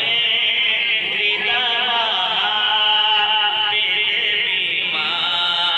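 A man singing a naat, an Urdu devotional poem in praise of the Prophet, into a microphone, holding long wavering notes.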